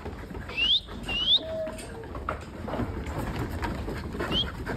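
Sheep shuffling and jostling on a wooden slatted yard floor. Short high chirps that rise in pitch stand out over it: two about a second in and another near the end.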